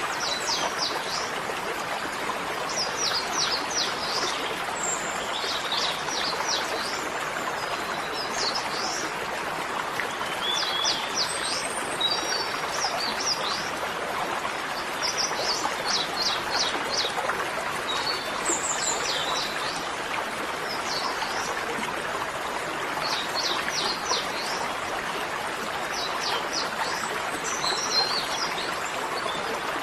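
Small birds chirping in short clusters of rapid high notes every few seconds, over a steady rushing noise like running water.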